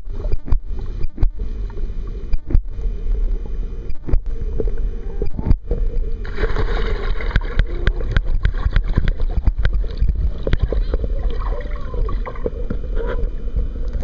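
Underwater sound in a swimming pool, heard through a submerged camera: a low muffled rumble with many sharp clicks and knocks. About six seconds in a swimmer plunges in, and a dense rush of bubbling and gurgling follows.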